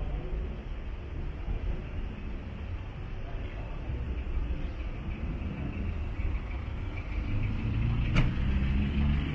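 Road traffic: a motor vehicle's engine running, louder near the end as it comes close, with one sharp click about eight seconds in.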